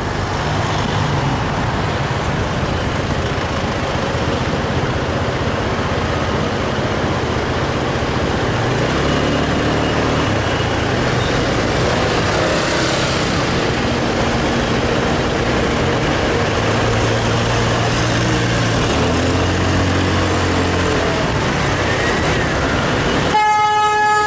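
Motor scooter riding in city traffic: a steady rush of wind and road noise with engine hum that rises and falls. A vehicle horn honks once, for about a second, near the end.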